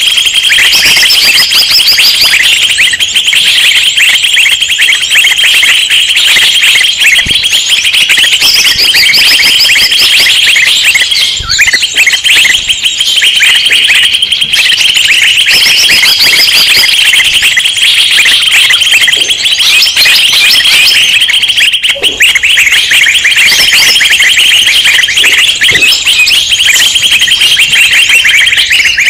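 A dense, loud chorus of many small songbirds chirping and trilling over one another without a break: a rowdy flock recording used as a lure call to draw in wild birds.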